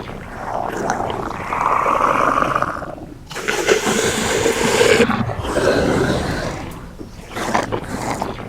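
Dinosaur roars: a series of long, rough roars, three or four in a row, each lasting about one to two seconds.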